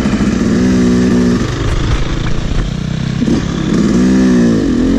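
2011 Yamaha YZ250 two-stroke single-cylinder dirt bike engine under way, its pitch steady at first, falling off after about a second and a half, then rising and falling a few times with the throttle in the second half.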